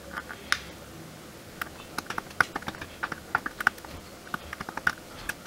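A blade scraping and cutting through a copper track on a TV power-supply circuit board, cutting the track to isolate an optocoupler pin. It makes quick, irregular small clicks and scratches, a few each second.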